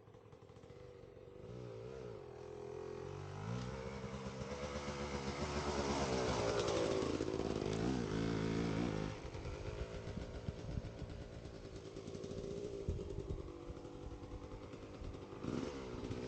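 Pit bike engine with a Lectron carburetor lugging at low revs, its note climbing and getting louder to a peak around seven seconds in, then dropping back about nine seconds in to a lower, uneven running. The engine has severe piston slap, which the owner puts down to a badly worn piston.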